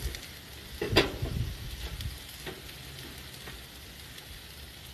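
Beef strips and sliced peppers sizzling steadily on a gas grill's griddle plate, with a sharp knock about a second in and a few lighter clicks later.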